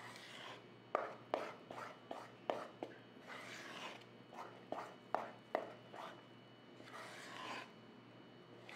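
Metal spoon stirring flour into thick batter in a stainless steel bowl: soft scraping and swishing, broken by sharp clinks of the spoon against the side of the bowl.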